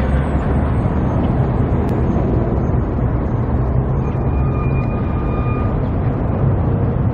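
Steady low rumble of vehicle and road noise. A faint thin high tone comes in for a couple of seconds past the middle.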